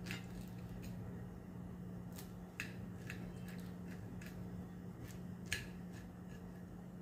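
Kitchen knife slicing a steamed alu vadi roll into rounds, a scatter of small sharp clicks as the blade cuts through and meets the glass plate, over a steady low hum.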